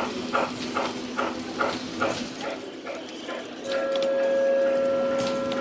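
Model steam locomotive's sound system chuffing in an even beat, about two and a half chuffs a second. About two-thirds of the way in, a loud held whistle tone starts and sounds steadily for about two seconds.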